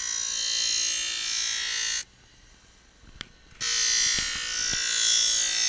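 Skate sharpening machine's grinding wheel grinding steel in two passes of about three seconds each, with a quiet pause of about a second and a half between them.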